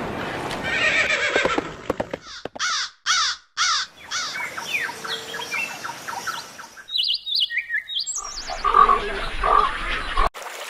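Bird calls in several short clips, one after another with abrupt cuts. A few seconds in come four harsh, crow-like calls in quick succession, followed by rapid chirps and a few short falling notes.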